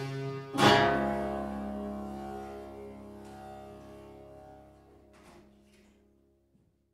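Strings of a long wooden table instrument sounded together once, about half a second in, ringing with many overtones and fading away slowly over about six seconds. A few light clicks near the end.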